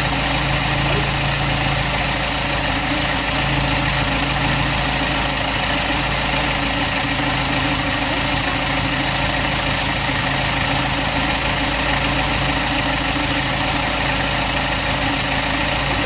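Toyota 2E four-cylinder engine idling steadily through an Aisan carburetor with the air cleaner off. It is warming up from a cold start on its electric automatic choke.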